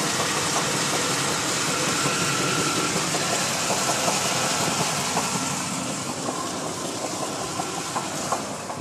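1991 Chevy K1500's 305 V8 running with a repeated knock, the sign of a worn connecting rod bearing. The sound grows quieter from about halfway through.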